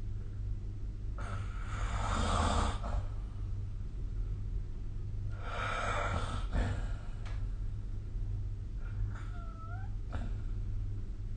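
A sleeping person snoring: two long, breathy snores about four seconds apart, over a steady low hum. A faint short squeak follows near the end.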